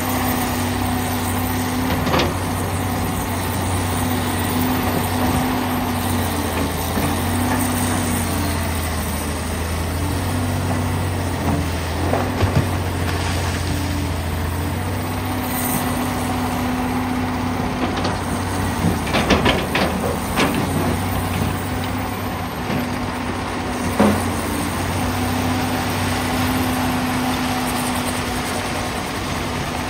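Komatsu PC450LC hydraulic excavator's diesel engine running steadily under working load, its tone easing and strengthening as it digs. Every so often the bucket clanks and rock clatters, most around two-thirds of the way through.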